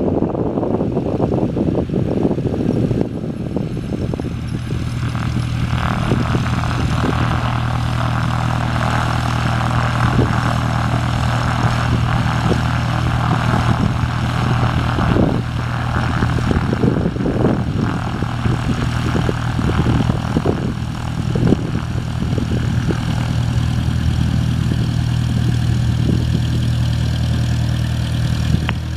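Cessna 172 Skyhawk's four-cylinder Lycoming piston engine and propeller running steadily at low, idling power.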